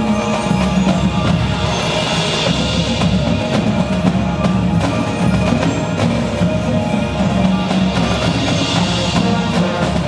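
High school marching band playing its field show music indoors: massed brass and winds holding sustained chords over drums and percussion, with no pause.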